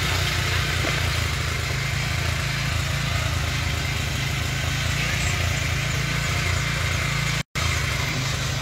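A small engine running steadily: a continuous low rumble with hiss, cutting out for a moment about seven and a half seconds in.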